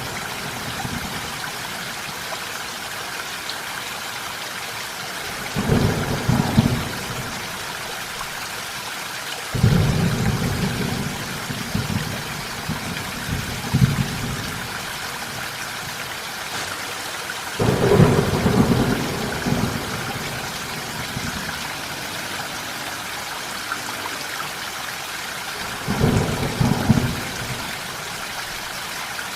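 Steady rain with low rumbles of thunder breaking in four times, roughly every eight seconds, each rumble lasting one to four seconds.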